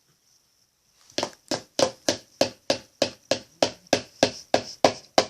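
A rapid, even series of sharp knocks or taps, about three a second, beginning about a second in.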